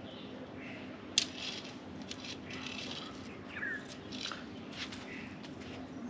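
Rustling and scraping as tent poles and fabric are handled during pitching, with a sharp click about a second in.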